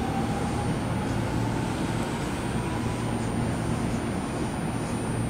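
Tobu Tojo Line electric train pulling out and accelerating away, a faint rising motor whine fading about a second in over steady running noise and a low hum.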